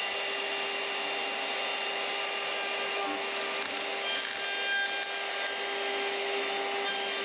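Ryobi cordless trim router with a flush trim bit, running at speed and routing the leash-plug hole through a fibreglass-laminated EPS foam board along a template. It makes a steady motor whine over the noise of the cut.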